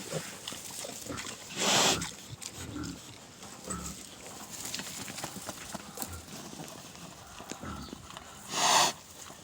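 Farm animals calling: two loud, short cries, one about two seconds in and one near the end, with quieter low grunting sounds in between.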